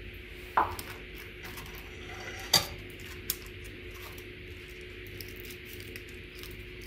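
Two sharp clinks of glass, about two seconds apart, then a lighter tap, as hands work in a glass baking dish, over a steady background hiss.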